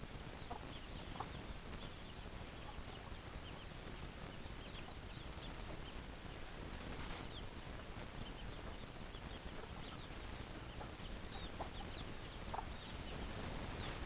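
Chickens clucking now and then over a steady low background hum, with many short high chirps scattered throughout.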